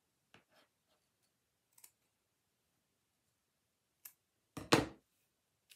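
Sparse light clicks and handling noises from hands working with craft materials, ribbon and scissors among them. One louder short sound comes near the end.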